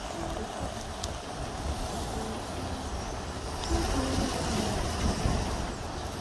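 Open wood fire burning under a cooking pot, with a couple of sharp crackles over a steady low rumble.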